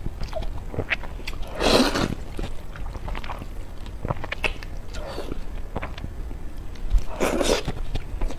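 A person slurping glass noodles, with two long loud slurps about two seconds in and near the end, and wet chewing and lip smacks between them.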